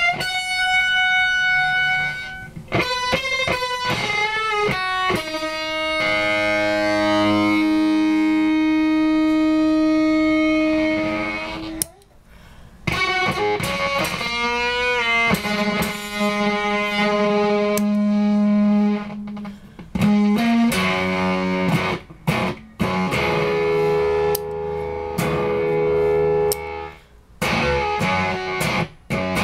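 Electric guitar played through Fairfield Circuitry effect pedals, with long held notes that waver and slide in pitch. There is a short break about twelve seconds in, and in the last third the notes stop abruptly and choppily.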